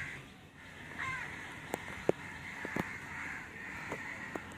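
Animal calls: a short call about a second in, then a longer, rough call from the middle to the end, with a few sharp clicks.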